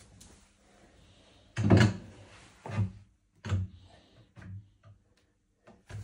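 Knocks and thumps as a cabinet door panel is handled and set against the cabinet's frame. The loudest knock comes about a second and a half in, followed by smaller knocks roughly a second apart.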